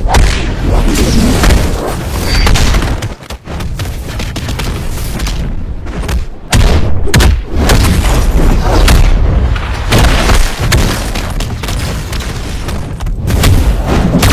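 Animated fight sound effects: a rapid string of loud, heavy booms and impacts with a deep rumble, dipping briefly about three seconds in.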